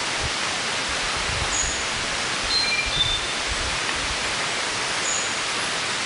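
Steady, even rushing ambience of a cloud forest, with a few short, high, whistled bird notes at scattered moments.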